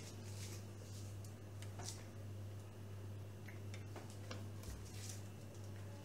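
Quiet room tone: a steady low hum with a few faint, irregular ticks.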